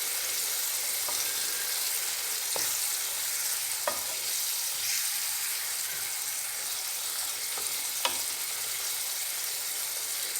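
Octopus pieces sizzling in a pan of fried onion, garlic, spices and tomato paste, being stirred, with a few sharp clicks along the way.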